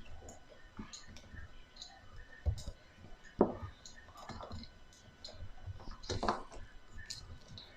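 Screwdriver working a dishwasher mounting screw: scattered small clicks of metal on metal, with a few louder knocks about two and a half, three and a half and six seconds in.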